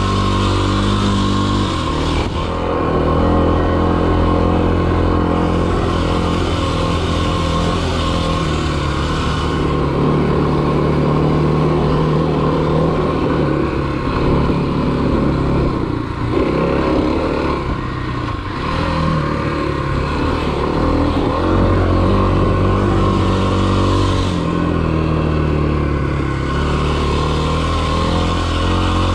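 Kawasaki KLX300 dirt bike's single-cylinder four-stroke engine running under throttle, its pitch rising and falling several times as the rider works the throttle through sand and whoops.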